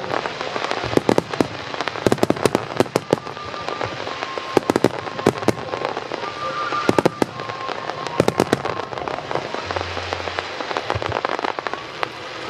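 Starmine fireworks display: aerial shells bursting in rapid clusters of sharp bangs over a continuous rumbling haze of explosions.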